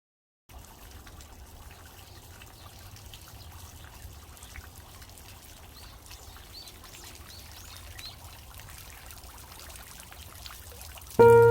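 Garden pond fountain water splashing and trickling steadily into the pond, with a few faint high chirps around the middle. Music with sustained bell-like notes starts right at the end.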